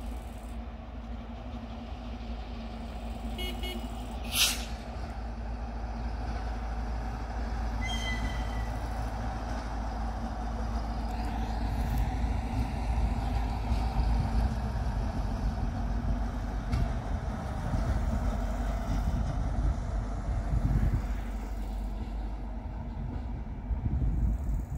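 A departing repair train's rumble, low and building as it draws nearer, with a sharp click about four seconds in and a brief high squeal about eight seconds in; it is loudest near the end as the wagons roll past close by.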